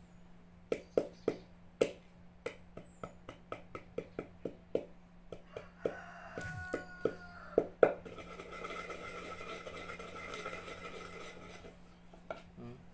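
Wooden pestle pounding in a wooden mortar, crushing the ingredients with dull knocks about three times a second. About eight seconds in, the knocking gives way to a steady rasping scrape as the pestle grinds around the bowl.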